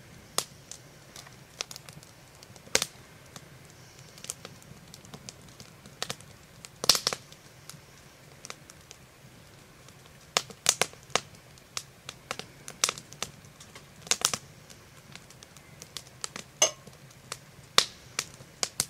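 Irregular sharp clicks and ticks, a few close together near the middle and later on, over a faint low steady hum.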